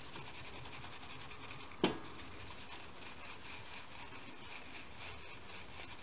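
A cloth rag rubbing in quick repeated strokes over a desktop CPU's metal lid, wiping off old thermal paste, with a single sharp click about two seconds in.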